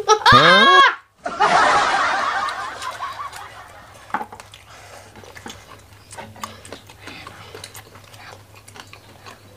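A loud vocal exclamation with a pitch that slides down and back up, then, after a brief cut-out, a burst of laughter that fades away over about two seconds. After that only faint scattered clicks and smacks of hands and mouths eating.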